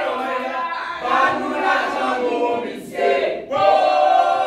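A group of men and women singing together without instruments, a choral chant; the voices break off briefly a little over three seconds in, then come back on a long held note.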